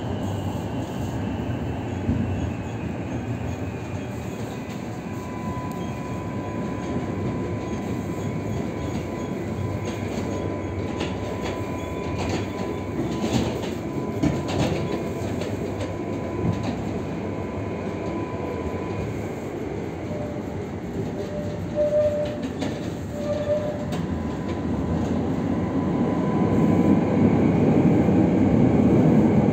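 Tatra T5C5K tram running on its rails: a steady rumble with a thin, steady high whine through much of it and a brief run of clicks about halfway through. The rumble grows louder near the end.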